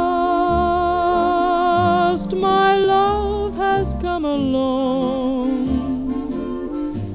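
Background music: a melody held in long notes with a strong vibrato over a plodding bass line, the pitch stepping every second or two.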